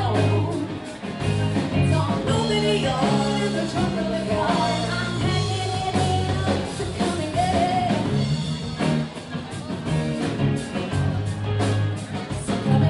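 Live rock band: a woman singing into a microphone over electric guitar, bass and drums.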